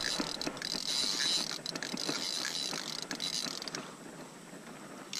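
Ultralight spinning reel being cranked as a hooked fish is reeled in, its gears giving a fast, steady clicking whir that stops about four seconds in.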